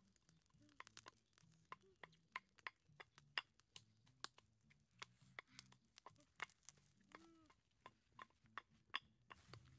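Small wood fire crackling under a stick grill: faint, irregular sharp snaps, a few each second.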